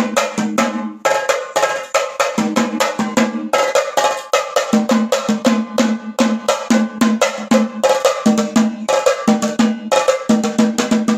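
A pair of small tabla-style drums beaten fast with two thin sticks: a quick, continuous run of sharp strikes, with a pitched low note from the larger drum sounding in repeated clusters.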